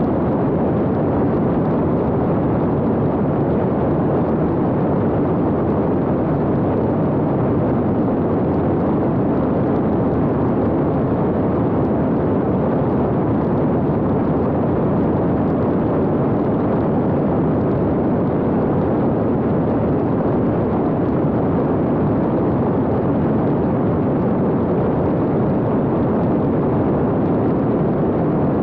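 Steady rushing noise of a fixed-wing X-UAV Talon drone in cruise flight: airflow buffeting the onboard camera's microphone, with the motor and propeller blended in and no clear pitch.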